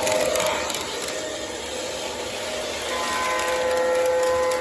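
O gauge model train running along the track, with the steady rush of the running train; about three seconds in, its onboard electronic sound system sounds a locomotive horn and holds it.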